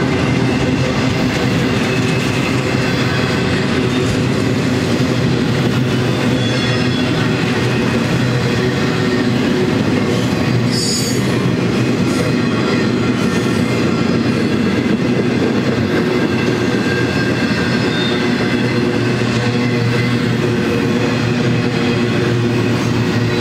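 Intermodal freight cars loaded with trailers and double-stack containers rolling past steadily, steel wheels running on the rails with an even rumble and steady ringing tones, and a brief high squeal about eleven seconds in.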